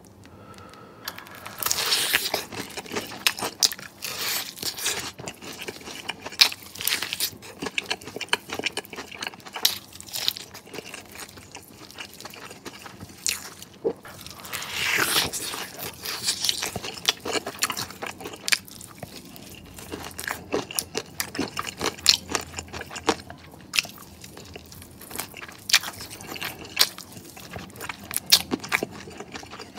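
Close-miked biting, crunching and chewing of sauce-coated KFC crispy fried chicken wings: many short crisp crunches spread throughout.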